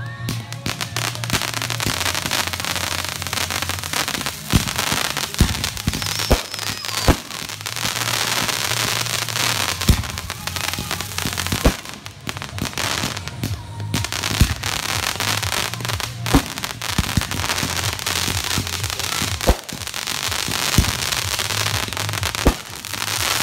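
Backyard aerial fireworks going off in quick succession: a continuous dense crackling of bursting stars, broken by frequent sharp bangs of shells launching and bursting.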